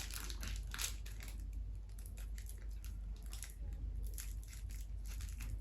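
Chocolate bar wrapper crinkling in the hands in short, scattered crackles as the bar is worked out of its packaging.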